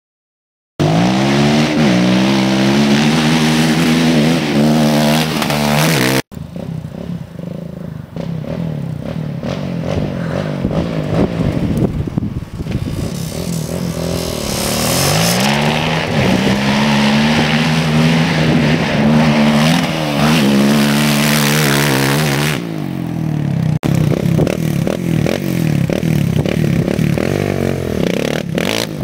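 ATV engine revving up and down as the quad is ridden, its pitch rising and falling. The sound breaks off abruptly a few times, with wind and rattling noise between the runs.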